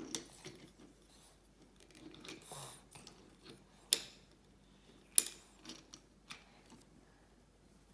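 Toy dump truck being handled: a string of sharp mechanical clicks and knocks, the two loudest about four and five seconds in.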